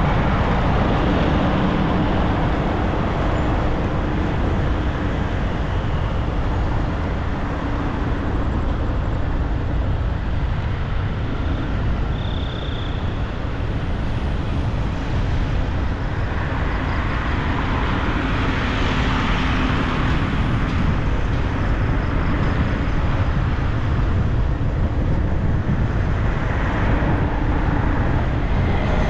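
Road traffic noise: a steady low rumble with cars and motorbikes passing, swelling to a brighter hiss of a passing vehicle about two-thirds of the way through.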